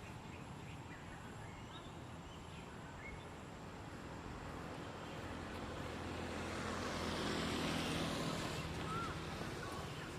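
An engine passing by, its hum and rush building to a peak about eight seconds in and then easing off, with a few faint bird chirps.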